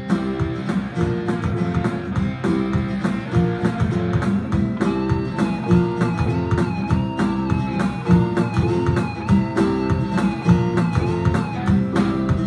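Live band playing an instrumental passage: drums keep a steady beat under bass and guitar chords. A bending lead melody line comes in about five seconds in.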